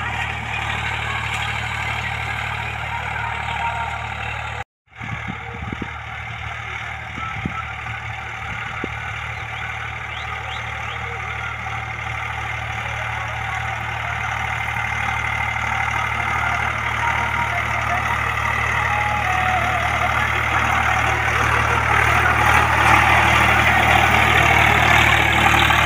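Swaraj 744 FE tractor's three-cylinder diesel engine running steadily under load while pulling a disc harrow through field soil, growing louder near the end as the tractor comes close. The sound drops out for a moment about five seconds in.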